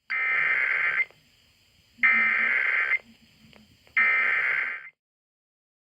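Emergency Alert System SAME header: three identical bursts of shrill, warbling digital data tones, each about a second long with a second's gap between them. These bursts are the coded header that opens an EAS message, here announcing a Required Weekly Test.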